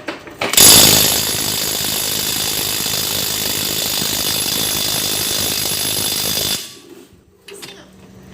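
Bossman impact wrench hammering on a drive shaft nut, a loud steady rattle that starts sharply about half a second in and cuts off after about six seconds, followed by a few faint clicks.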